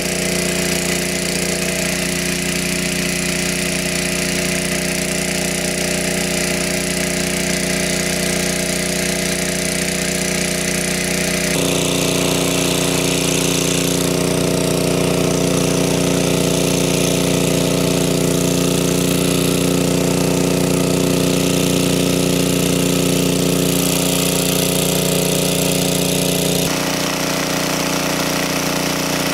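Small petrol engine water pump running steadily at full throttle, with water gushing from its discharge hose and splashing down. The mix shifts abruptly a couple of times, about a third of the way in and near the end.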